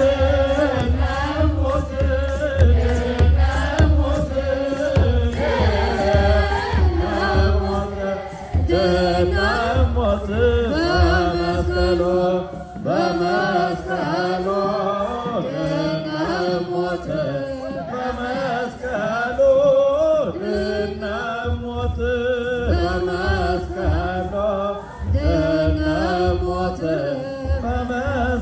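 A choir of Ethiopian Orthodox Sunday school students singing a chant-like hymn in unison, about being saved by the cross of Jesus Christ, with a low pulsing beat underneath.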